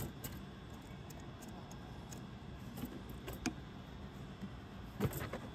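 Scattered light clicks and knocks as a plastic cold-air intake tube and airbox are handled and pushed together, with a short cluster of louder knocks about five seconds in.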